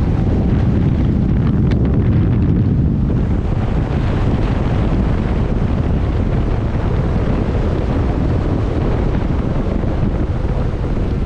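Heavy wind buffeting the microphone, a loud, steady rushing rumble, during a high-speed run on a 72 V electric bike.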